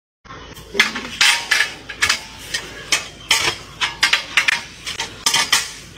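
Wooden tree-climbing frames clacking and knocking against a palm trunk as a climber shifts them upward: a run of sharp knocks, about two to three a second.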